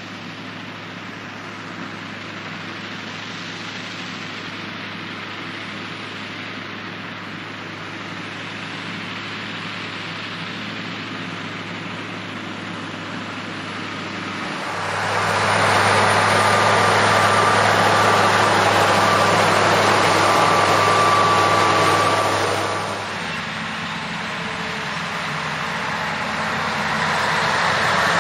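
Scania V8 diesel engine of a converted Steiger Cougar tractor working hard pulling a cultivator, its steady drone growing louder as it approaches. About halfway through it becomes much louder with a high whine for several seconds, then eases off and builds up again near the end.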